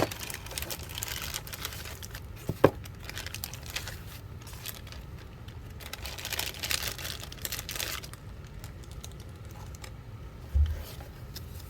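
Packaging crinkling and tearing as a small accessory pack is opened by hand, in two rustling spells, with a sharp click about two and a half seconds in and a short dull thud near the end.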